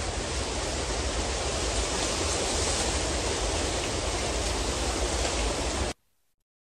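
Wind buffeting the microphone: a steady rushing hiss over a heavy, uneven low rumble, which cuts off suddenly near the end.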